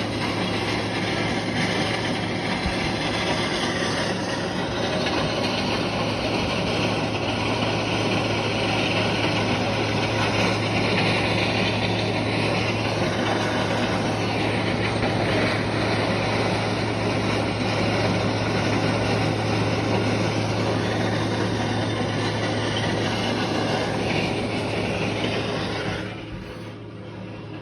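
Loud, steady mechanical noise with a constant low hum underneath. It drops off sharply a little before the end.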